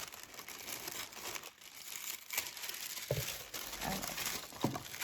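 Packaging crinkling and rustling as a subscription box is unwrapped by hand, with a few soft knocks after about three seconds.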